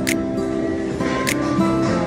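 Background music: held, sustained chords with a sharp percussive hit twice, about a second and a quarter apart.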